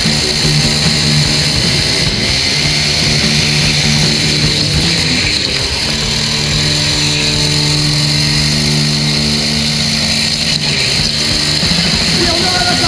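Go-kart engine heard from the driver's seat while lapping at speed, its pitch holding through the corners and rising as it accelerates near the end, over a steady hiss.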